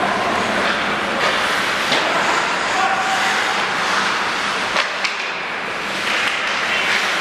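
Ice hockey play: a steady hiss of skates on the ice, with several sharp clacks of sticks and puck as players skate in around the net.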